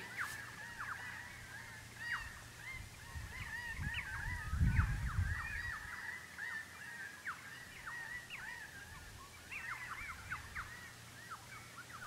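A flock of crimson rosellas calling, many short chirps overlapping without a break. A low rumble swells and fades about four seconds in.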